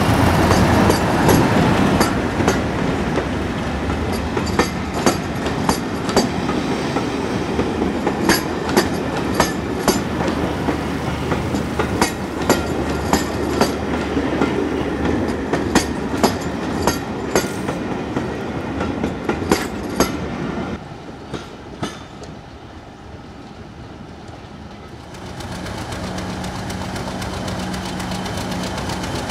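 Diesel train running past on jointed track, a steady rumble with wheels clicking over the rail joints at an even pace. It turns quieter about twenty seconds in, and near the end a steady engine hum comes up.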